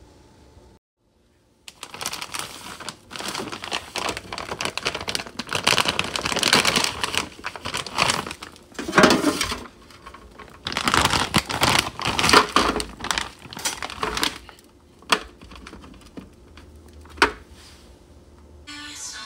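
Plastic bag of frozen breaded plant-based chicken tenders crinkling as it is handled and rummaged in. Near the end come a few sharp separate clicks as the frozen tenders are set on a metal baking pan.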